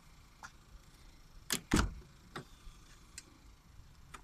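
Car's front door being opened by hand: two sharp clicks close together about a second and a half in, the second a louder clunk as the latch releases, then a few small clicks as the door swings open.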